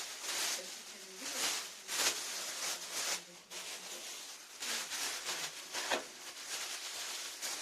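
Rustling and handling of the floor fan's packaging in irregular bursts while the box is searched for remaining parts.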